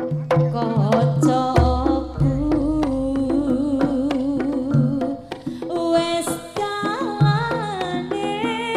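Live East Javanese jaranan music: a woman singing with vibrato over a gamelan ensemble with steady hand-drum strokes and gongs, and a deep low note held for a few seconds near the start.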